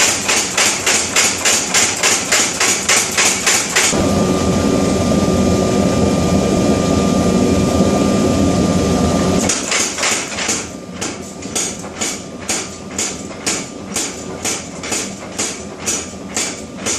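Power hammer pounding hot steel in a fast, even rhythm of about five blows a second. About four seconds in it gives way to a steady roar with a faint whine for some five seconds. The hammer blows then resume, quieter and a little slower.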